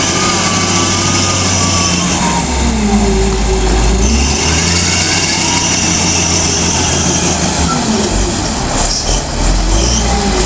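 Lonking CDM833N wheel loader's diesel engine working under load as the boom lifts a full bucket of sand. Its pitch rises and falls as the operator works the throttle.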